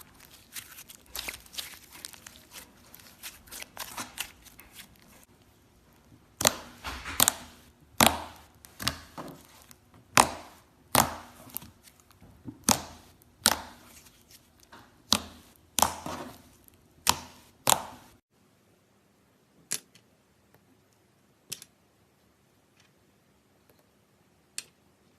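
Hands squeezing and pressing slime: a fine sticky crackle at first, then a run of sharp wet pops and clicks, about one a second, as the slime is folded and pressed. About 18 seconds in it drops to a few faint, scattered clicks.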